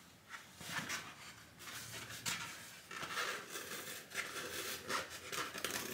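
Old, crumbling foam liner being picked and torn out of a motorcycle helmet shell by hand: a string of faint, irregular scratching and crumbling noises. The foam has broken down with age and comes apart like dust.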